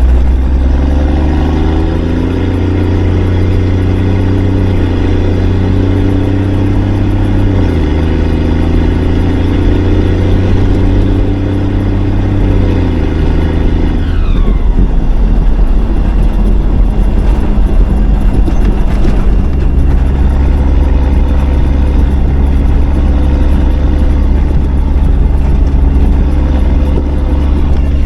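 5-ton military truck's engine running under way, its pitch climbing, holding and dropping a few times in the first half, then running steady from about two-thirds in.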